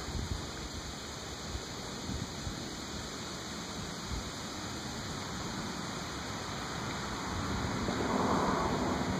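Steady rushing noise with a flickering low rumble, swelling slightly near the end.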